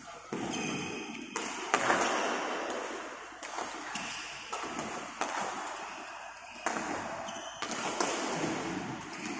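Badminton rally: rackets striking the shuttlecock and players' feet landing on the court, a sharp hit about every one to two seconds, echoing in a large sports hall.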